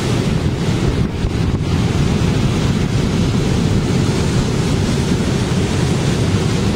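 Storm surf breaking and washing up a sloped concrete seawall. Strong wind buffets the microphone throughout.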